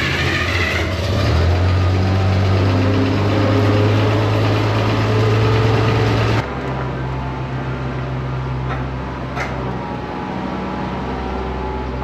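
Farm tractor engine running steadily. About six seconds in the sound changes suddenly to a slightly quieter, steadier run.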